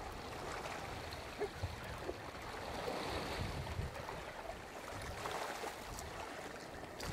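Sea water washing and gurgling against the rocks at the shoreline in a steady wash, with two brief sharp clicks about a second and a half in.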